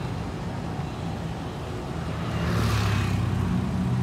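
Street traffic: a motor vehicle's engine running nearby, its low hum growing louder about halfway through, with a brief rushing hiss near the middle.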